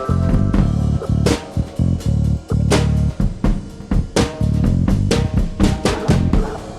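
Background music: a band with drum kit, bass and guitar playing a steady beat.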